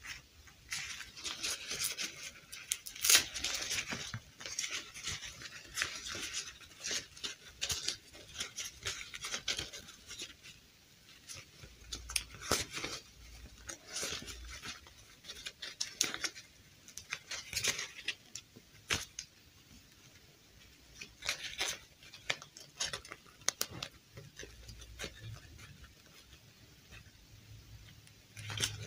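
Doll-size fabric dress rustling and scraping as it is pulled onto a plastic fashion doll, with light plastic clicks from the doll's limbs being handled. The sounds come in short, irregular scrapes and ticks with brief pauses between them.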